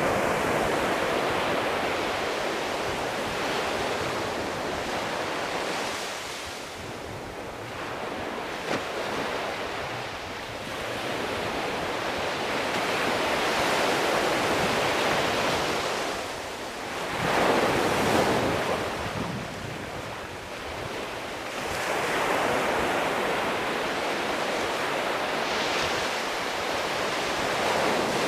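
Sea waves washing onto the shore, the surf swelling and ebbing every few seconds.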